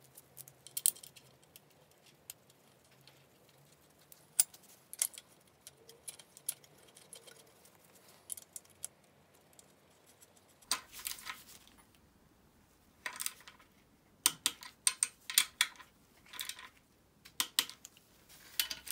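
Hand tools and metal engine parts being handled: scattered light metallic clicks and clinks, growing into busier clusters of rattling clicks over the second half.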